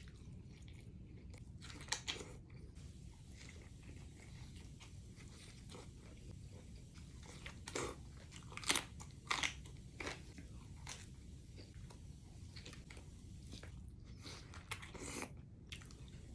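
Close-up chewing and biting of carne cecina tacos with pico de gallo: wet, crunchy mouth sounds with scattered louder crunches, over a low steady hum.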